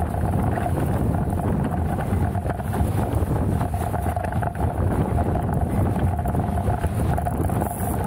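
Strong wind buffeting the microphone on a small sailboat underway, in wind of every bit of 25 to 30 knots. It makes a steady, heavy low rumble with a steady mid-pitched hum underneath.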